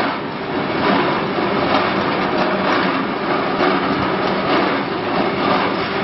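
The machinery of a sawdust carbonization furnace plant running steadily. It is a loud, even mechanical drone with a faint regular clatter about once a second.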